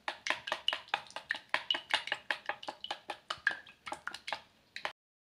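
Eggs being beaten with a utensil in a stainless steel bowl, the utensil clicking against the metal about six times a second in a quick, even rhythm. The clicking stops suddenly near the end.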